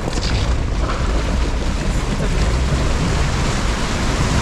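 Jeep driving through a shallow river: a steady rush of splashing water over the engine's low rumble.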